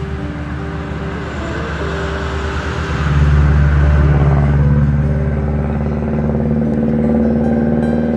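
A motor vehicle engine running. It grows louder about three seconds in, then rises slowly in pitch as it picks up speed.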